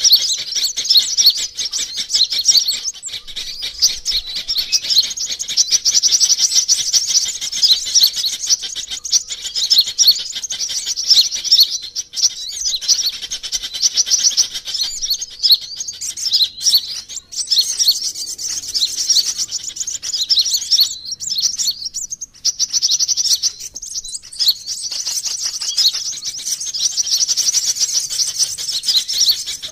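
Sunbirds twittering: a dense, continuous stream of rapid high-pitched chirps and trills, with a few short lulls around the middle. This is a lure call ('suara pikat') played to draw wild sunbirds in.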